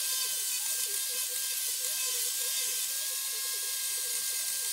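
Angle grinder running at a steady speed, a steady high whine over a hiss, used to strip the leftover bark from the live edge of a wood slab.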